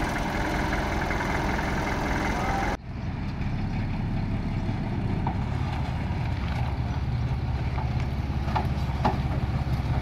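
Heavy diesel construction machinery running steadily. About three seconds in the sound cuts abruptly, then goes on as a duller, deeper engine drone with a few faint knocks.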